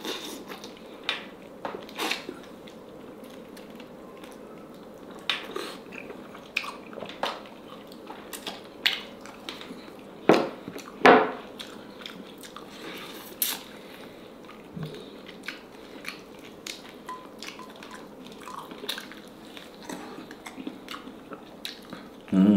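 Close-up mouth sounds of a person biting and chewing boiled chicken on the bone: a run of short wet clicks and bites at irregular intervals, with two louder ones about ten and eleven seconds in.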